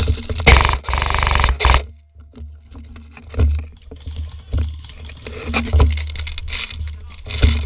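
A rapid full-auto burst from an airsoft electric gun about half a second in, lasting just over a second, followed by scattered sharp clicks and knocks over low rumble from wind and handling on the microphone.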